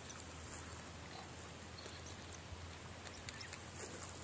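Quiet outdoor ambience: a steady high-pitched whine with a few faint clicks about three to four seconds in.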